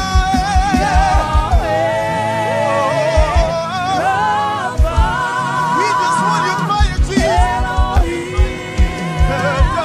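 Christian worship music: a singing voice holding long notes with vibrato over a steady kick-drum beat, which drops out for a few seconds in the middle and returns near the end.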